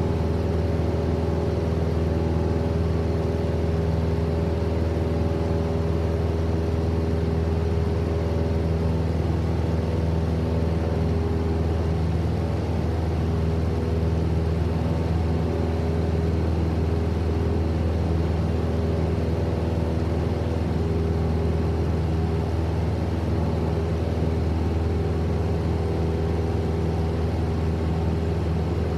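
Single-engine propeller Cessna in cruise, heard from inside the cabin: a steady, unchanging drone of engine and propeller, strongest in a low hum with a row of steady higher tones above it.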